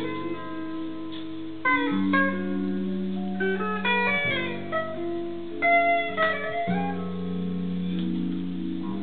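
Record playing on a Rotel RP-830 turntable, heard through the amplifier's speakers: guitar-like plucked-string music, single notes and chords that ring on.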